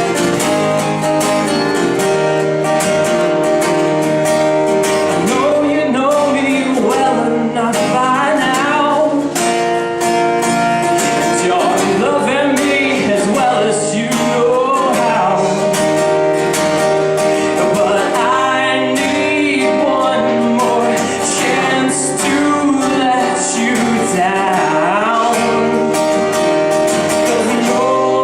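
A song with strummed acoustic guitar and a singing voice, the voice coming in about six seconds in.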